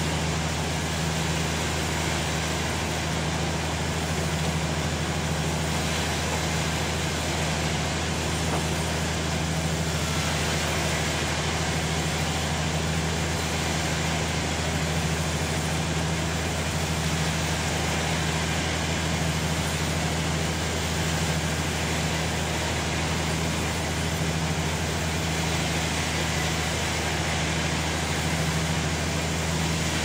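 Log sawmill running steadily: a constant low machine hum under an even hiss, with no change in pitch or level.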